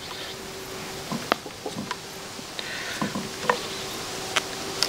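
Butcher's twine being pulled tight and knotted round a rolled lamb shoulder on a wooden block, then cut with a knife: scattered light ticks, taps and squishes of hands, string and meat. A faint steady hum runs underneath.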